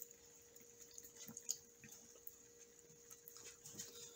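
Near silence with faint scattered clicks of people chewing and plastic forks scraping paper plates, over a faint steady hum.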